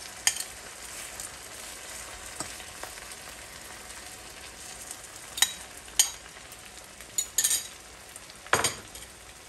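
Beaten eggs being poured onto diced peppers, tomato and onion frying in butter in a hot pan: a steady sizzle, with a few sharp clicks scattered through it, the biggest near the end.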